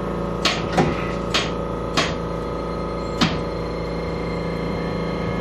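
Tokyo Toden 8800-series tram running, a steady hum in the cab broken by five sharp, irregularly spaced clacks of its wheels crossing rail joints and points in the first few seconds.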